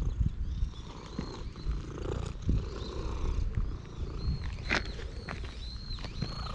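Domestic cat purring close to the microphone while it is being stroked, a low continuous rumble.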